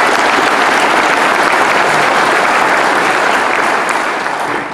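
An audience applauding steadily, dying away near the end.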